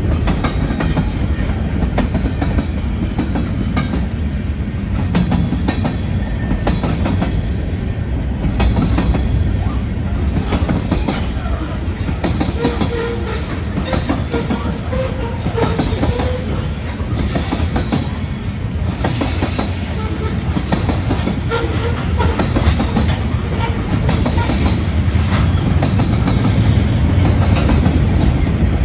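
Mixed freight cars of a manifest train rolling past at steady speed: a continuous rumble of steel wheels on rail, with a running clatter of clicks as the wheels cross rail joints.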